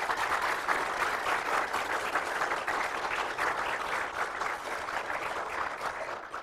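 An audience applauding with dense, steady clapping that dies away near the end.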